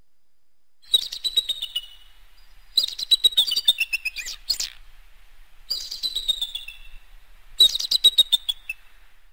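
Eagle calling: four runs of rapid, high chirping notes, each trailing slightly down in pitch.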